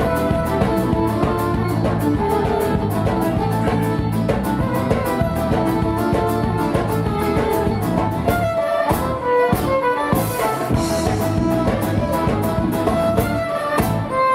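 Live folk-rock band playing an instrumental break, a fiddle carrying the tune over a steady drum beat.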